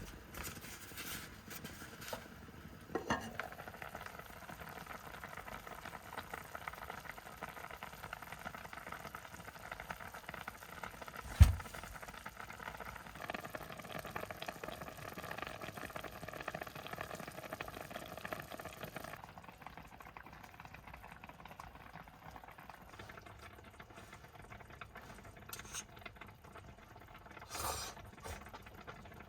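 Food cooking in a pan with a steady sizzle that stops about two-thirds of the way through, and one sharp knock near the middle.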